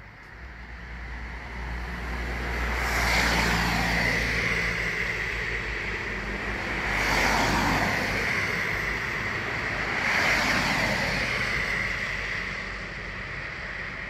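Cars passing along the street, three passes in a row, over a steady high-pitched tone that fades out near the end.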